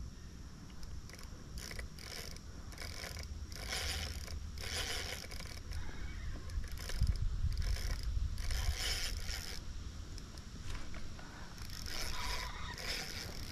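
Fishing reel clicking and whirring in repeated short bursts as a hooked chinook salmon is played on the rod. A low rumble on the microphone swells about halfway through.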